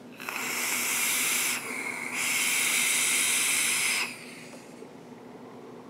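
Loud hissing of a long draw through a dual-coil, roughly 0.2-ohm rebuildable dripping atomizer, with the vapor breathed out as a dense cloud. The hiss lasts about four seconds, dips briefly in the middle, then stops.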